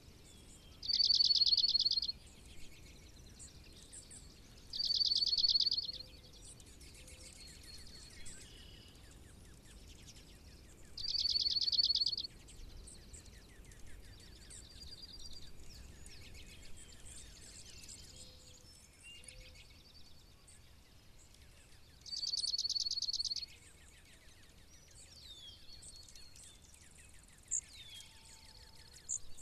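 Slate-colored dark-eyed junco singing: four loud trills of rapidly repeated notes on one pitch, each about a second long and several seconds apart, with fainter calls of other birds in between.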